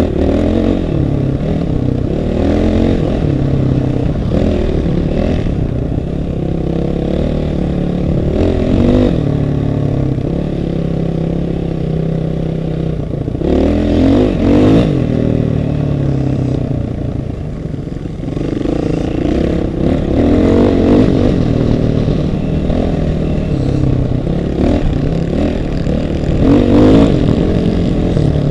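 Off-road vehicle engine running and revving up and down repeatedly, with the strongest revs about halfway through and near the end.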